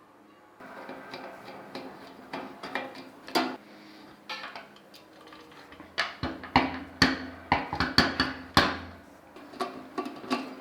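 Sharp knocks and clatter of hand tools on metal, coming in quick clusters and loudest a little past the middle, over soft background music.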